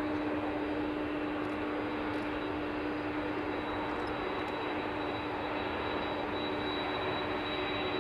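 Jet engines of a Boeing 767-300ER running steadily: a constant low tone over a broad rush, with a high whine growing from about halfway.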